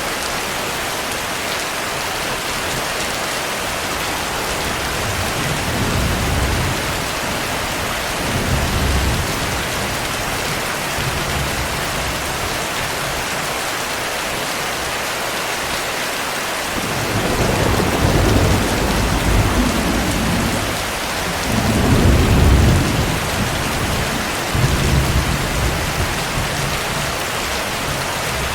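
Steady heavy rain with several low rolls of thunder: two softer rumbles in the first third, then three louder ones in the second half.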